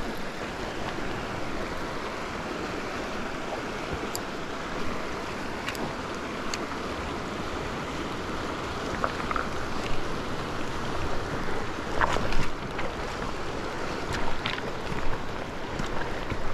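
Steady rush of flowing river water with wind on the microphone, broken by a few light clicks.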